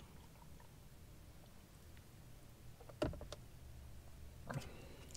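Quiet car cabin with a low steady hum; a short knock about three seconds in as a drinking glass is set down, followed by a few faint clicks.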